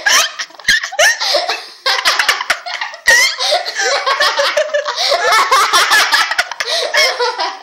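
A girl laughing hard. The laughter comes in short broken bursts at first, then runs on almost without a break from about three seconds in.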